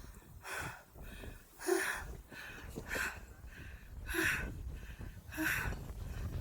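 A person breathing hard close to the microphone: a quick, even run of short, breathy puffs, about one every half second or so.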